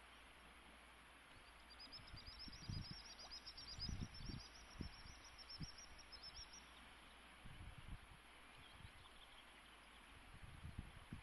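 A small songbird sings one high trill of rapid notes, lasting about five seconds, over the faint steady hiss of a flowing river, with scattered low thumps.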